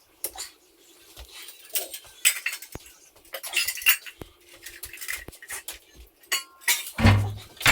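Metal utensils and dishes clinking and knocking at irregular intervals, with a heavier thump about seven seconds in.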